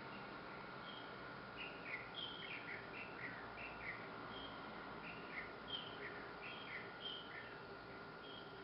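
Small birds chirping: many short, falling notes in quick runs, over a steady outdoor hiss and a faint thin steady tone.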